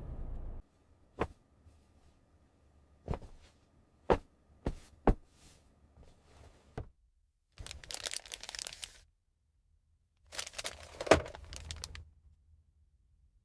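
A steady engine-like sound cuts off less than a second in. Then come about six sharp separate knocks and clicks, and two bursts of rustling and crinkling, each about a second and a half long, the second with a loud crack in it.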